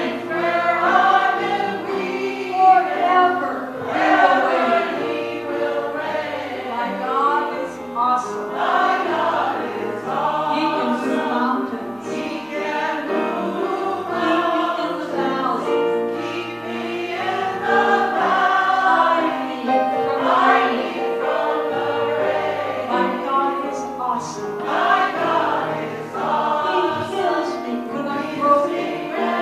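Mixed gospel choir of men and women singing together.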